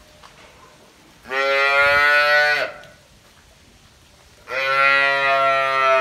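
A cow mooing twice: two long calls of about a second and a half each, the first a little after a second in and the second near the end.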